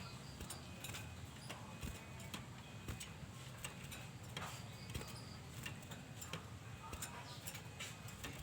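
Quiet gap between bursts of song from a caged cinereous tit (gelatik batu): faint scattered ticks and a few soft, short high chirps over a low steady hum.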